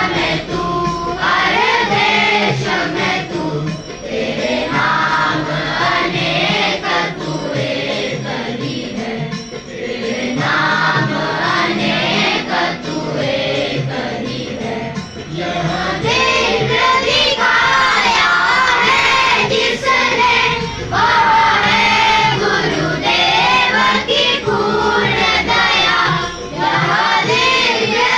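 A large group of children singing a prayer song together in unison, line by line, with short breaks between lines.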